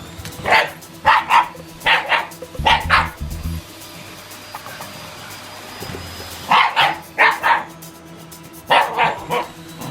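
Shiba Inu barking at a vacuum cleaner in quick bursts of two or three barks, with a pause of a few seconds in the middle.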